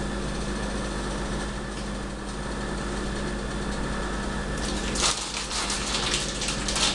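A plastic bag crinkling and rustling, from about five seconds in, as a ball of mac and cheese is shaken in flour inside it. A steady hum runs underneath throughout.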